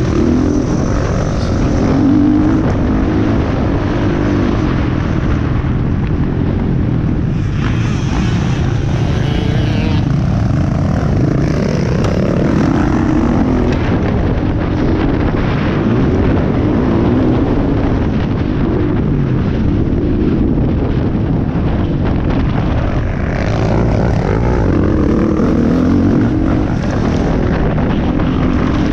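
Motocross bike engine revving hard, its pitch rising and falling over and over as the throttle is worked and gears change around the track, heard from the rider's own bike-mounted or helmet camera with heavy low rumble on the microphone.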